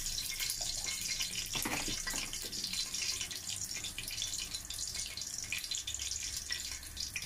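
Oil with whole spices (cinnamon, cloves, bay leaves) sizzling steadily in pans on the stove, with many small crackles.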